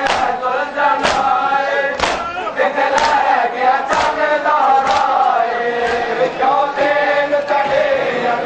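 A crowd of men chanting a noha lament in unison, with a sharp collective slap of matam (hands beating bare chests) about once a second, keeping time with the chant.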